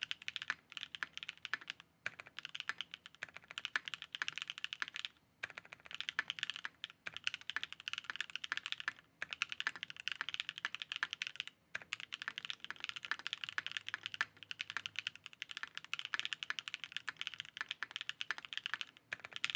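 Typing on a mechanical keyboard with lubed Gateron Cream Soda long-pole linear switches, a UHMWPE plate and an all-aluminium case: fast runs of clacky keystrokes with brief pauses between bursts.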